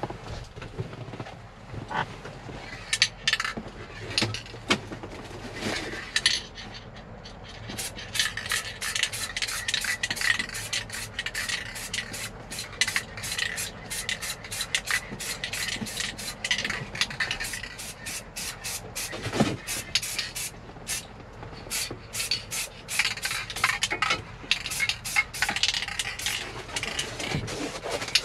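Aerosol spray-paint can (paint with primer) spraying in many short hissing bursts, with scraping and rubbing from the cardboard held around the shifter as a mask.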